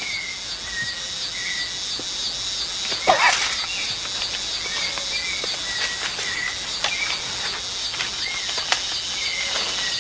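Rainforest ambience: a dense, steady chorus of insects pulsing a little over once a second, with short bird whistles scattered through it. About three seconds in, a single sharp, louder sound stands out, with a few fainter clicks later on.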